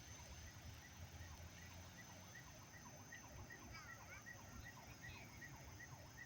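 Faint night chorus of frogs and insects: a short chirp repeating about three times a second, a steady high whine and many short calls underneath, over a low, distant rumble of city traffic.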